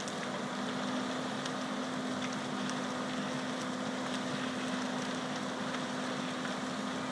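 Fire engine's engine running steadily while pumping water to the hoses: a steady low drone under a rushing hiss, with a few faint sharp ticks.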